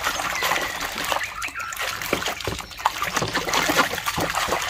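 Water splashing and trickling as a muddy plastic toy gun is washed by hand in water, with irregular sharp splashes.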